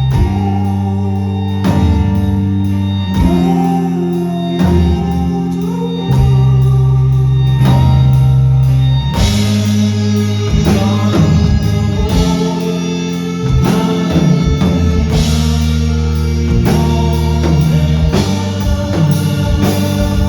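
Rock band playing live, loud and steady, with drum hits over sustained bass and guitar notes.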